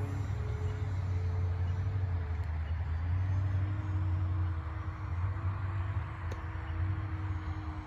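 Steady low rumble of wind on the microphone, with the faint, steady hum of a small RC plane's electric motor and propeller flying overhead.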